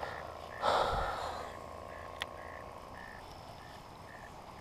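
A frog calling at the pond, short high notes repeated about twice a second. About a second in comes a brief, loud rush of noise, and a single sharp click follows a little after two seconds.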